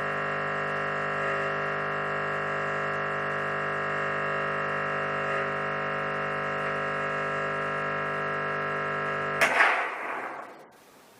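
Espresso machine pump humming steadily under pressure, plausibly a backflush against a blanking disc. About nine seconds in it is switched off, and there is a sudden loud hiss as the pressure is dumped from the group head through the overflow; the hiss fades within about a second.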